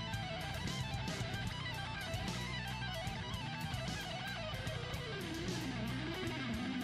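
Background music led by guitar, with a wavering melody over a steady beat.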